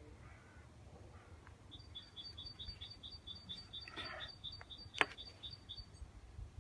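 A bird singing a quick, even run of short high chirps, about four or five a second, for roughly four seconds. About five seconds in, a single sharp click, as of metal scissors being set down on the wooden table.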